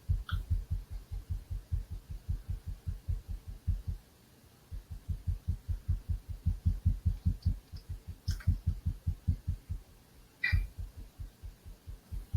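Rapid low banging, about five thuds a second in runs broken by short pauses, with a few sharp clicks and a heavier thump near the end.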